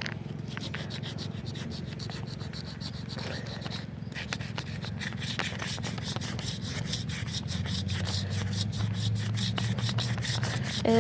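Sandpaper rubbing over a car wheel rim in rapid back-and-forth strokes, about five a second, wearing off a peeling coat of spray paint and rubberized sealant.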